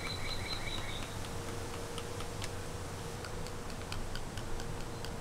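Outdoor ambience: a high, rapid pulsed trill for about the first second, a few faint scattered clicks, and a faint steady hum.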